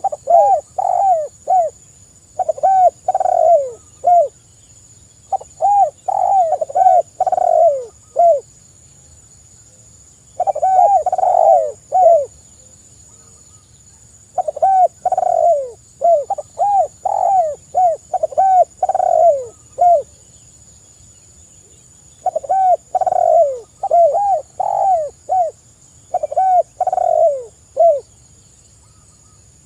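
Spotted doves (tekukur) cooing in repeated phrases of several short notes, each note falling in pitch, with pauses of a second or two between phrases.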